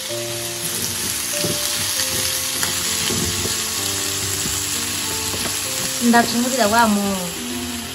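Kernels sizzling in a small aluminium pan on an induction hob while being stirred with a wooden spatula, with a few scraping knocks of the spatula against the pan. Background music with held notes runs underneath, and about six seconds in a short wavering vocal phrase is the loudest moment.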